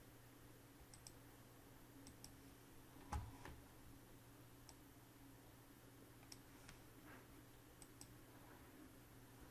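Faint clicks of a computer mouse, several in quick pairs, spread through otherwise near silence, with one duller knock about three seconds in.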